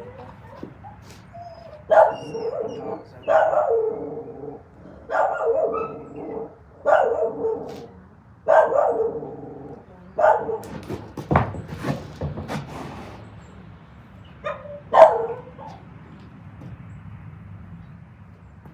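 A dog barking repeatedly, single barks about every one and a half to two seconds, the last and loudest one near the end.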